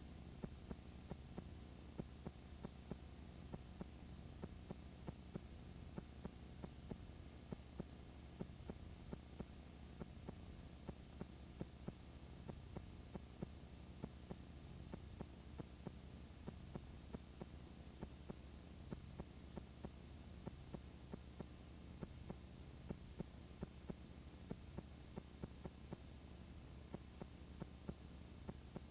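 Faint steady electrical hum with irregular soft clicks, about two or three a second: the playback noise of a blank, unrecorded stretch of videotape.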